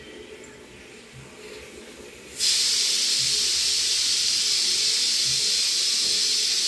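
A steady, loud hiss starts suddenly about two and a half seconds in, after a quiet stretch with a faint low hum.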